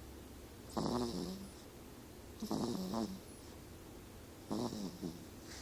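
Snoring: three pitched snores, each under a second long, coming about two seconds apart.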